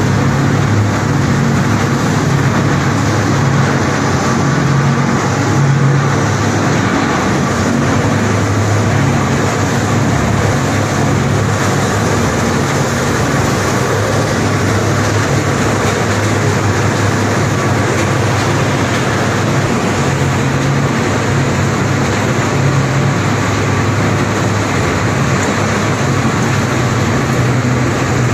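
PE film recycling washing line running: a loud, steady machine noise with a low hum.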